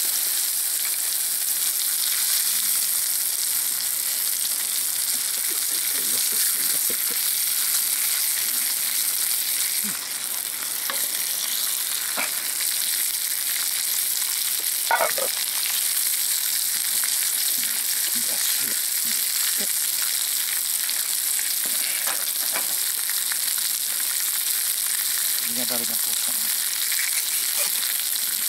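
Beef steak and vegetables frying in a cast-iron skillet over charcoal: a steady sizzling hiss with an occasional pop.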